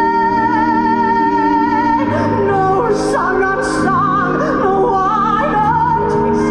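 A woman singing over a backing track of accompanying music: a long high note held with vibrato for about the first two seconds, then a moving line of shorter notes.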